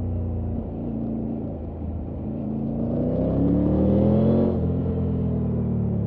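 Triumph Tiger 900 Rally Pro's three-cylinder engine running under way, heard from the rider's position. Its revs dip briefly about half a second in, then climb steadily and grow louder from about two seconds in, and drop suddenly just after four and a half seconds before settling back to a steady run.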